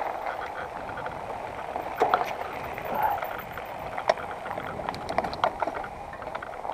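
Mountain bike descending a dirt singletrack: tyres rolling over dirt and loose stones with a steady rush, and scattered sharp clicks and knocks as the bike rattles over bumps.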